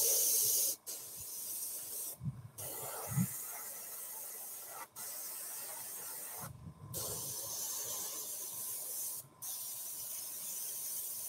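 Dual-action airbrush spraying paint: a steady hiss of air in several passes, cut by brief pauses each time the trigger is let off.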